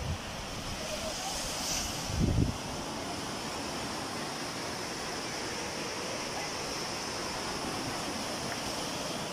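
Sea surf breaking and washing onto a sandy beach as a steady hiss, with a short burst of wind rumble on the microphone about two seconds in.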